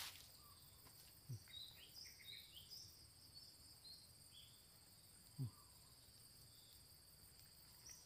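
Faint outdoor ambience: a steady high-pitched insect drone with scattered short chirps of small birds, mostly in the first half. Twice, about a second in and again past the middle, a brief low sound drops in pitch.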